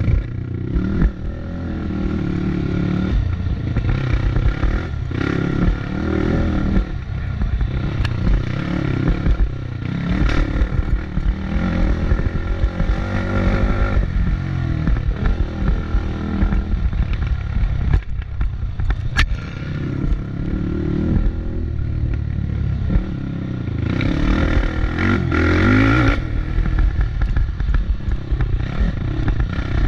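Off-road racing engine revving up and easing off again and again as it is ridden, with a few sharp knocks along the way.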